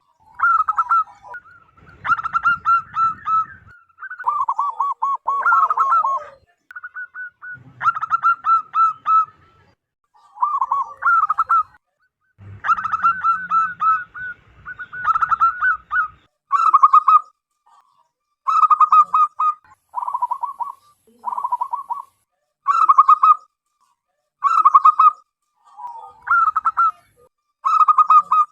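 Zebra dove singing loudly: a run of staccato cooing phrases, each about a second of rapid pulsed notes, repeated one after another with short gaps.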